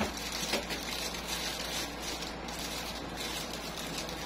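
Faint rustling and soft scattered clicks from a plastic toy airplane being handled, over a steady low hum.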